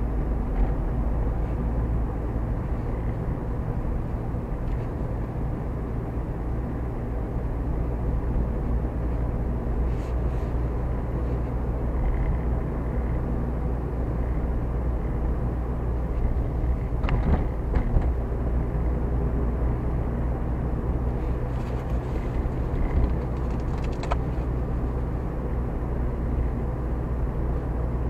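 A car's engine and tyre noise, heard from inside the car as it drives along a city street: a steady low rumble. A few brief knocks or rattles come about two-thirds of the way through.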